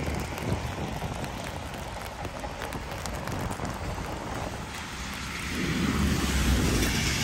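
Sleet falling in a steady hiss, dotted with many small ticks of drops and ice landing. About five and a half seconds in, a gust of wind rumbles on the microphone and the rush of it swells.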